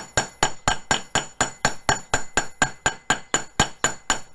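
Sheet-metal hammer striking copper sheet on an anvil in a fast, even rhythm of about four to five blows a second, each with a short bright metallic ring: the flat face of the hammer is flattening the copper and planishing out small nicks.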